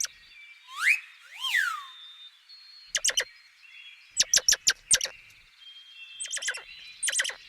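Squirrel calling: a pair of rising-then-falling squeals about a second in, then bursts of rapid sharp chips.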